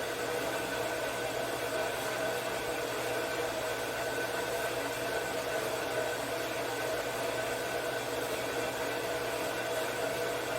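Steady machine hum with a few held tones over an even hiss, like an electric motor or fan running at constant speed.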